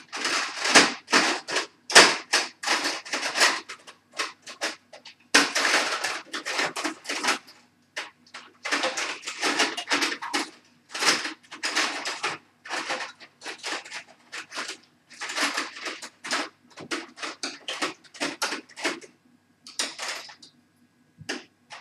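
Rapid, irregular scraping and clicking as tools work on the metal and plastic parts of a dismantled laptop hard drive, in runs broken by short pauses, over a faint steady hum.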